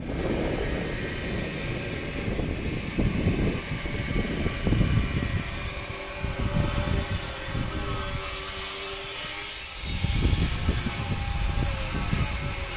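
Wind rumbling on the microphone in uneven gusts.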